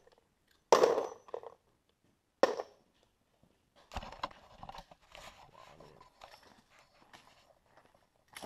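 Handling noise from a semi-automatic gun being worked by hand after it failed to cycle: a couple of sharp knocks and clacks in the first few seconds, then light scattered clicks and rustling.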